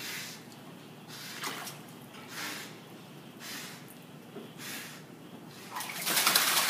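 A dog swimming with a toy in its mouth, breathing through its nose in short noisy puffs about once a second. A louder rush of water comes near the end.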